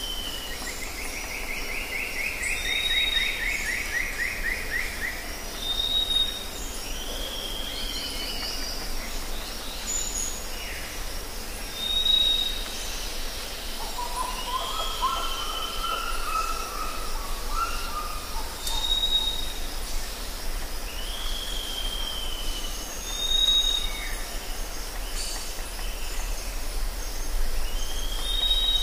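Forest birds calling: a short down-slurred whistle repeats about every three seconds, alternating with a brief higher note. A falling trill comes in the first few seconds, and a lower warbled phrase comes about halfway through, all over a steady background hiss.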